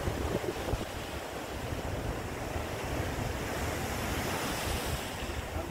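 Sea surf washing below a rock cliff, a steady rushing noise, with wind buffeting the microphone.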